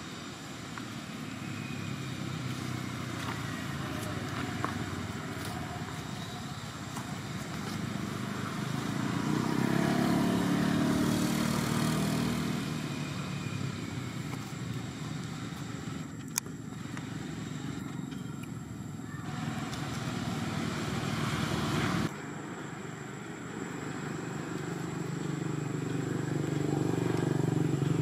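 Engine noise of passing motor vehicles. It swells and fades, loudest about ten seconds in and again near the end, with one sharp click around the middle and a sudden drop in the noise about two-thirds of the way through.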